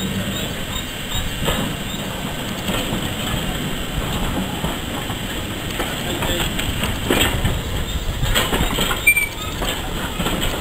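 Steam-hauled train rolling slowly past close by, a passenger coach and a small tank locomotive, with a steady low rumble. The wheels clank sharply over rail joints a few times, mostly in the second half, and there is a brief squeak near the end.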